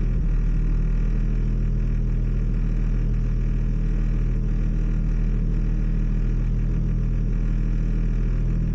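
Toyota Supra engine running at a steady speed, a constant drone with no change in pitch.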